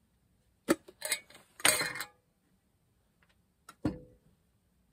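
Hands fetching dried wild dagga flower petals: a sharp click under a second in, then two short rustles, and near the end a clink with a brief ring.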